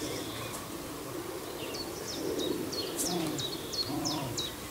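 Birds calling: low wavering cooing calls, with a quick series of short high chirps from a small songbird through the middle.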